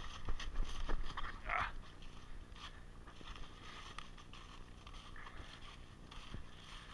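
Footsteps crunching and rustling through a thick layer of dry fallen leaves, the heaviest steps in the first second. One short, brighter sound stands out about a second and a half in.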